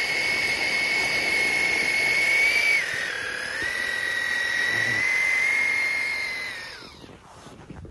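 RC off-road buggy's motor whining at high revs as it drives through deep snow. The pitch dips about three seconds in, climbs back, then falls away near the end as it slows.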